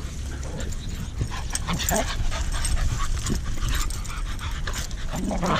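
Several dogs vocalizing as they wrestle in rough play, with short scattered calls and a stronger low call near the end.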